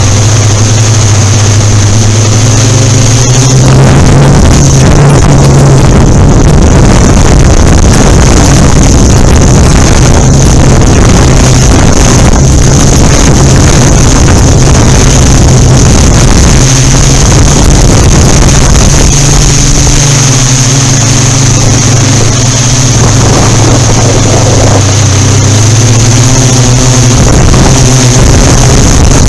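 Yuneec Typhoon Q500 4K quadcopter hovering, its motors and carbon fiber propellers giving a loud, steady drone whose pitch shifts up and down as the motors work to hold position, with a thin high whine above it. The propellers are unbalanced, and wind noise hits the unfiltered camera microphone.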